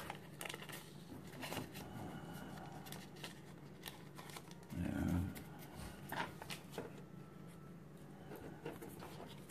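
Faint rustling and crinkling of the paper backing being peeled from a sticky-back vinyl floor tile, with scattered small clicks of handling. A short low sound comes about five seconds in.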